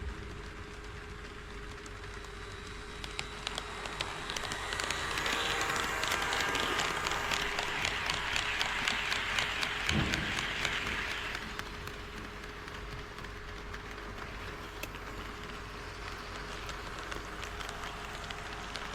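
HO scale model train running past on the track, its wheels clicking rapidly over the rail joints; the clatter builds up over a few seconds, is loudest for about six seconds, then fades away.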